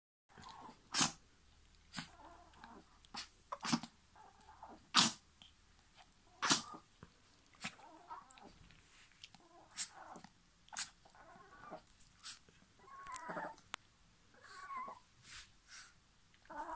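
Chihuahua giving short, sharp nasal snorts over and over while burrowing its face into a plush cushion bed, a dozen or so at irregular intervals, with a few soft grunting sounds near the end.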